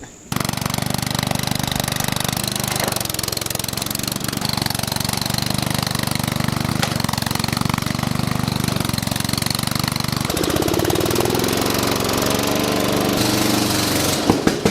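Riding lawn mower's 11 hp engine running with a rapid, steady pulsing note. About ten seconds in the sound changes, with a wavering higher note joining in.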